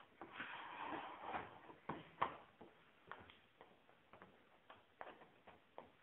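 Plastic detergent drawer of an AEG Lavamat washing machine sliding in with a rubbing sound and clicking shut, then the program dial turned click by click through its settings, in a string of irregular ticks.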